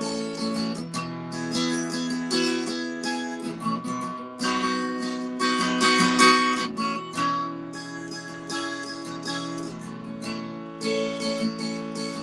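Acoustic guitar strummed steadily through an instrumental break in a country song.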